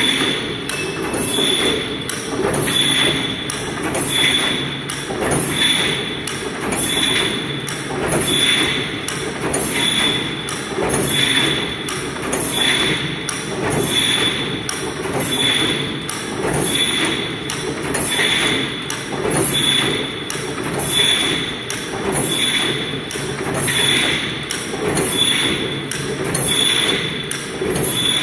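4 m hexagonal wire mesh (netting) machine running, its weaving cycle repeating evenly about every one and a half seconds. Each cycle gives a clattering thump and a short high metallic ping, over a steady machine hum.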